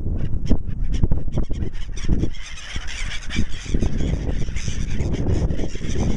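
Birds calling, several at once, over a steady low rumble.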